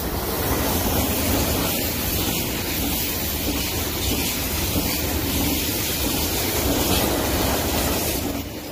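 KTX-Sancheon high-speed electric train passing close by, a steady rush of wheel and air noise. It builds in the first half-second and falls away near the end.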